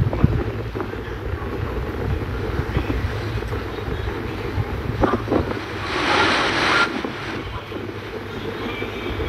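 Wind buffeting the microphone over a steady low rumble, with a brief hiss about six seconds in.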